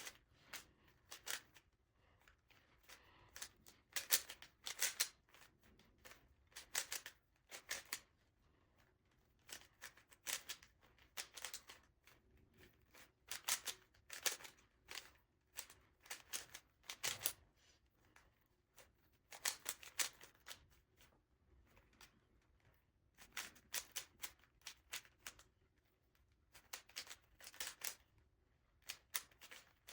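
Rubik's cube being turned rapidly by hand during a timed solve: bursts of quick plastic clicks and clacks, with short pauses between them.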